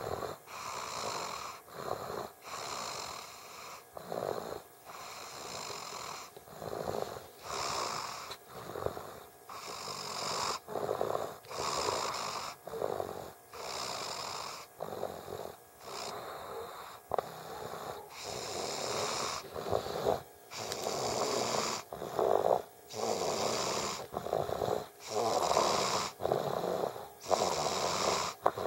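A young child snoring in sleep, a snore on each breath about every two seconds, in a steady rhythm.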